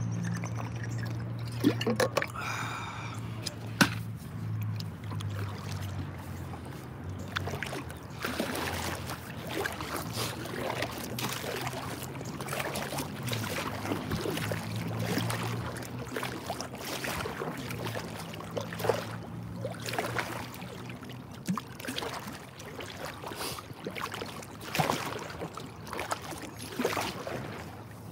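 Water splashing and lapping against an inflatable boat as it moves over a calm lake, with a low steady hum that fades out about halfway through.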